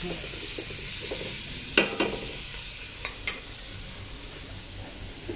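Chopped onion, ginger, chili and garlic sizzling in hot oil in an aluminium pot as they are stirred, a steady frying hiss. A sharp clack about two seconds in and two lighter clicks about a second later.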